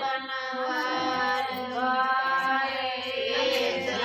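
Women singing a traditional wedding folk song, with long held notes.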